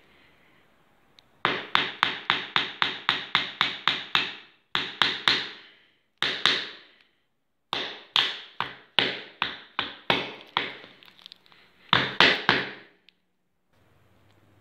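Small hammer driving small nails into a wooden base to pin down the feet of a wire armature: a fast run of light sharp blows, about four a second, then shorter runs of blows with brief pauses between them.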